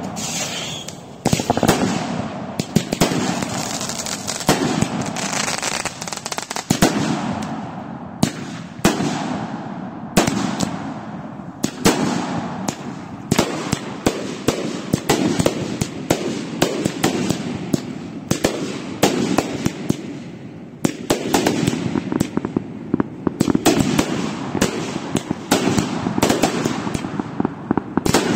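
Ground-launched consumer fireworks going off continuously: many sharp pops and bangs, close together, over a constant rushing hiss.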